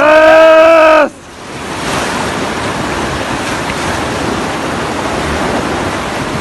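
River water rushing steadily on the Trishuli river. It follows a loud held pitched note that cuts off about a second in.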